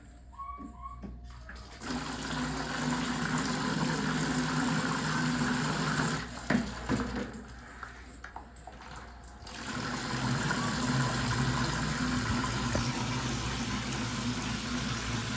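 Handheld shower spraying water into a plastic bucket, a steady rush that starts about two seconds in. About halfway through come a few knocks and the rush drops for a couple of seconds, then it sprays on steadily again.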